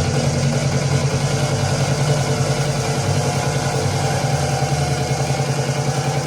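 Steady, engine-like drone with a strong low hum and a fast, even pulse, played back through loudspeakers.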